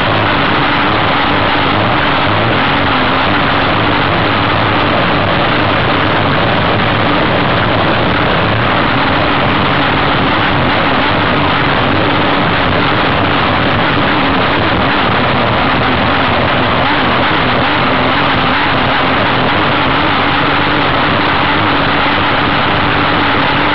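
Race hydroplane's engine running at a steady speed, loud and unchanging, with a dense rush of noise over a low, level engine note.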